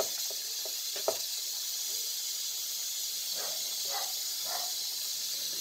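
Minced pork and vegetables sizzling in a pan on the stove, a steady hiss, with a single light click of the metal spatula about a second in.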